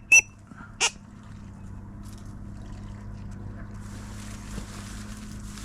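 Three short, high whistled peeps in the first second, a teal-style whistle call, then a low steady hum with a faint hiss of wind toward the end.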